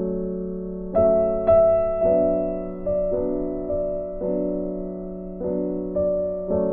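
Background piano music: slow single notes and chords, each struck and left to fade before the next.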